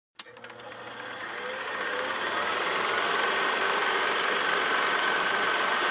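Film projector running: a click as it starts, then a rapid mechanical clatter with a faint whine that swells over the first couple of seconds and then holds steady.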